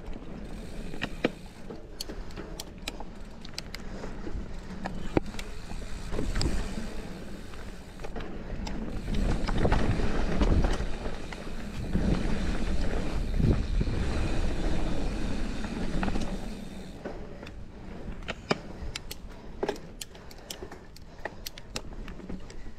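Giant Trance mountain bike rolling fast down a dirt singletrack: a steady rumble of the knobby tyres on the trail, with many sharp clicks and rattles from the bike over bumps. It gets louder from about nine to sixteen seconds in.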